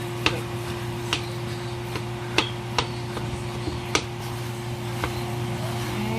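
A cooking utensil knocking and scraping against a pan as fried rice is stirred and tossed: irregular sharp clicks, about one a second, over a steady hum.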